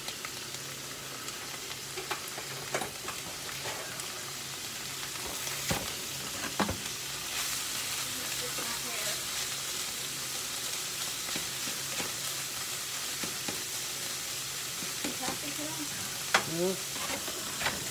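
Ground meat sizzling as it browns in a nonstick frying pan, the sizzle growing louder about halfway through. A utensil stirring it gives a few sharp clicks and scrapes against the pan.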